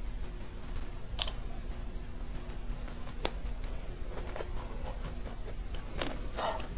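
Someone biting and chewing a matcha macaron, with scattered crisp crackles of the meringue shell that come closer together and louder near the end, over a steady low hum.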